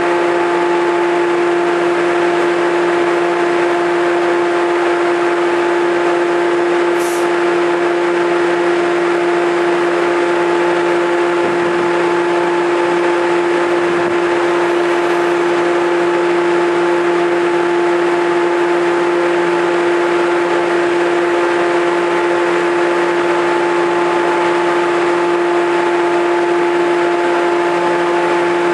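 Japanese railway level-crossing warning alarm sounding without a break, a loud steady ringing tone, while the barriers stay down for a train's shunting move.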